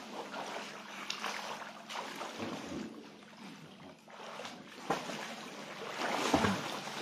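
Shallow seawater splashing and sloshing as people wade and swim in it, with louder splashing near the end as a swimmer dives forward.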